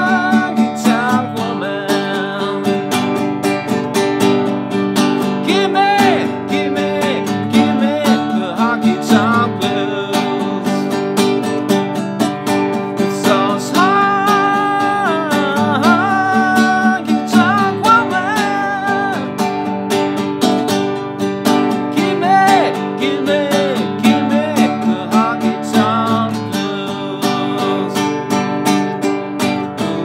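A man singing along to a steadily strummed nylon-string classical guitar, in sung phrases with short gaps between them. Near the end the voice drops out and the guitar carries on alone.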